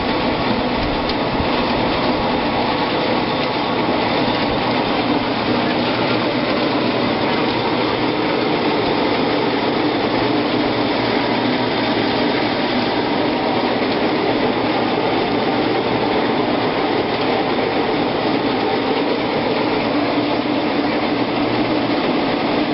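Motorised grape crusher-destemmer running steadily as Pinot Noir grapes go through it, an even mechanical noise that stops abruptly at the end.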